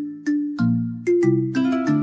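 Background music: a melody of struck notes that each start sharply and die away, over low bass notes, with a quick cluster of notes about a second and a half in.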